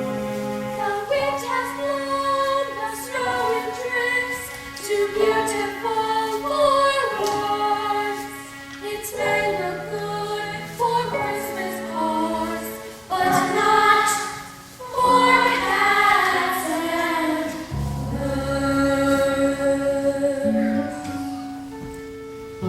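Young cast singing a musical-theatre number together in chorus over instrumental accompaniment.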